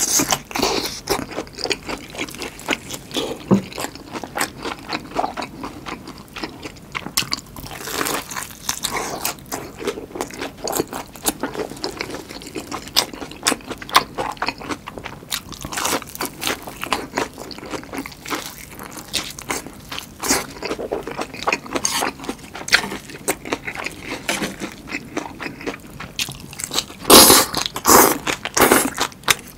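Close-miked eating: crisp crunching bites and chewing of batter-fried giant green chili peppers, with wetter chewing of chive kimchi. A cluster of louder bites and chews comes near the end.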